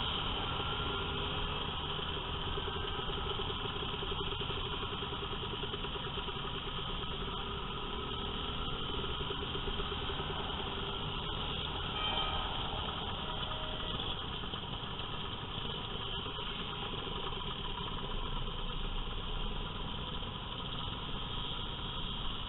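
Engines of a convoy of motor scooters and motorcycles running steadily, with faint engine tones over continuous road noise and a few small clicks.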